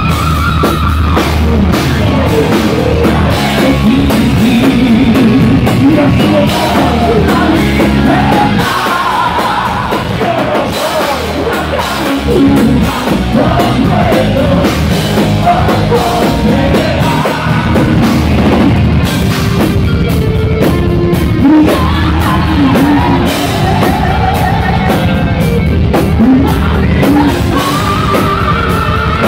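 Live heavy metal band playing loudly: electric guitar, bass guitar and drum kit, with a male singer.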